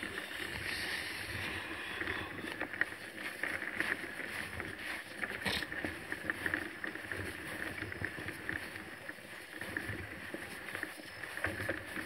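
Mountain bike rolling over a bumpy grass track: the tyres swish through the grass while the bike rattles with frequent small knocks, and there is a louder knock about five and a half seconds in.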